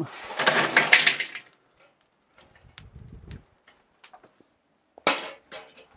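Lit charcoal poured from a metal chimney starter into the firebox of a kamado grill, a dense rattling clatter lasting about a second and a half. Faint clinks follow, then a second, shorter clatter with a slight metallic ring about five seconds in.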